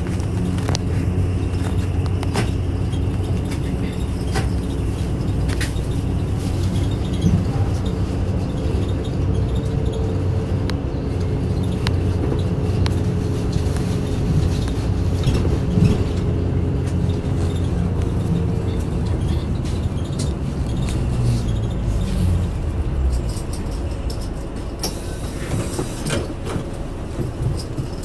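Isuzu Erga Mio city bus running, heard from inside the cabin: the diesel engine's steady drone under way, with scattered small rattles and clicks. The level eases off a little in the last few seconds.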